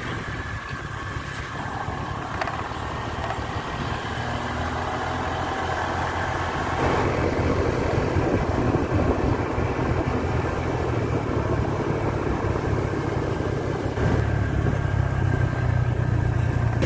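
Motorcycle engine running steadily while riding along a road, growing louder about seven seconds in and again near the end.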